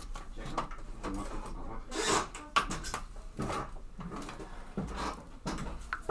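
Hands handling an embroidery hoop holding a sheet of stiff water-soluble film on an embroidery machine: irregular clicks, scrapes and plastic rustles, with the loudest scrape about two seconds in.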